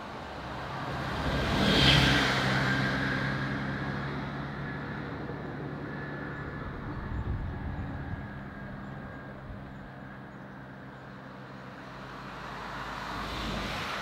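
Coal train running away along the line, a steady rumble of rolling wagons with an engine-like hum that swells to its loudest about two seconds in and then slowly fades. The noise swells again near the end.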